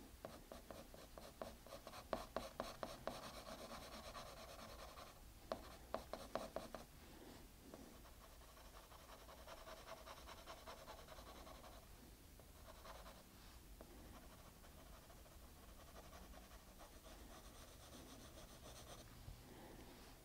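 Pencil scratching on paper in quick, short shading strokes, faint throughout. A rapid run of strokes fills the first third, loudest around two and six seconds in, then it settles into softer, lighter shading.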